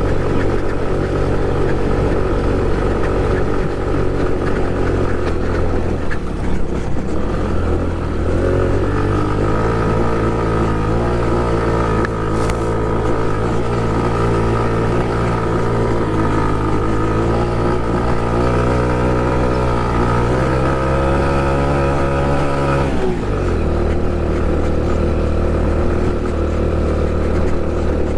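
Honda Pop 110i's small single-cylinder engine running under load on a dirt hill climb. Its pitch rises about eight seconds in, wavers as the throttle works, then drops sharply near the end as the throttle is eased off.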